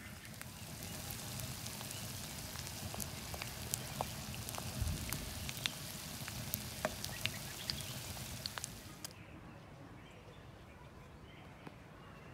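Egg frying in oil in a cast iron skillet on a wood stove: a steady sizzle with scattered sharp pops of spattering oil. It cuts off suddenly about nine seconds in, leaving faint outdoor background.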